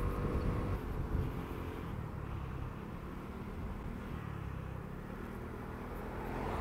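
Lexmoto Aura 125cc scooter under way at a steady speed: its single-cylinder four-stroke engine running under a steady low rumble of wind and road noise.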